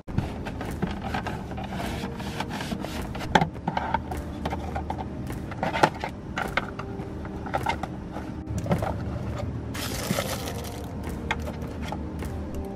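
Hands clearing out a car's plastic glove compartment: pens, packets and small items scraping, clicking and knocking against the plastic, with a brief rustle about ten seconds in.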